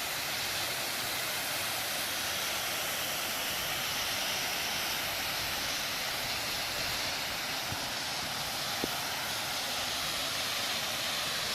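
Steady rushing noise of a waterfall, an even hiss of falling water.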